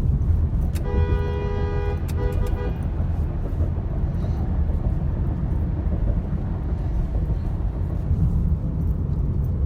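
Car driving, with a steady low rumble of road and engine noise. About a second in, a two-note horn sounds twice, first for about a second and then for about half a second.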